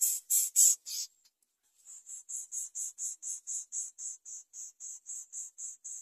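Greater coucal nestlings begging: a rapid series of short, high-pitched raspy calls, about three or four a second. The calls break off about a second in and resume softer after a short pause.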